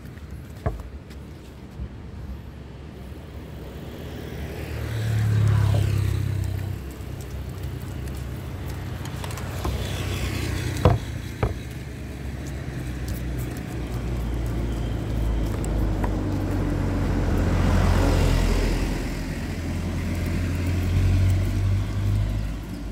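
Several road vehicles passing one after another, each rising and then fading, with a low engine rumble throughout. A few sharp clicks stand out, two of them close together about halfway in.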